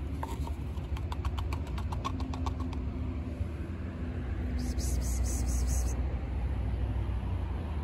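Steady low outdoor rumble, with a quick run of light ticks about a second in and a brief high hiss in the middle.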